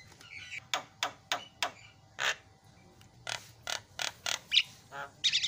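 Javan myna giving an irregular run of short, sharp clicking notes, ending with a brief higher warbled phrase.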